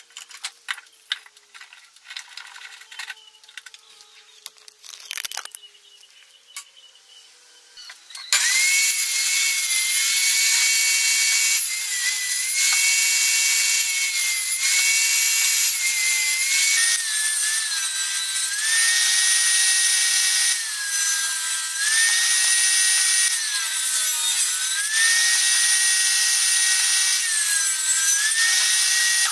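A few faint clicks, then a benchtop table saw comes in abruptly about eight seconds in, running loudly with a high motor whine while it rips rough pallet-wood boards. The whine's pitch sags several times as the blade loads up in each cut, then recovers.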